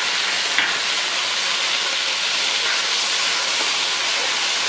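Fish sauce sizzling in hot oil in a wok with frying garlic and red chili: a steady, loud hiss, with one brief click about half a second in.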